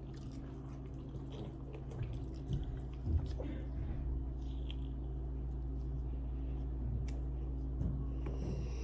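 Soft, wet squishing and chewing of someone eating fufu, in scattered small clicks over a steady low hum.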